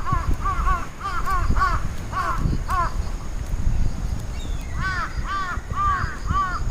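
Birds giving short, harsh, repeated calls, about two a second, in two runs with a pause of about two seconds between them.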